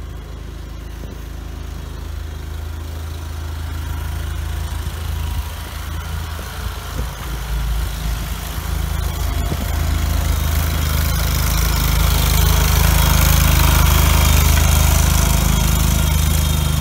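Allmand TLB-25 compact backhoe's 25 hp Kohler twin-cylinder gas engine running steadily while the machine drives, growing louder through the second half.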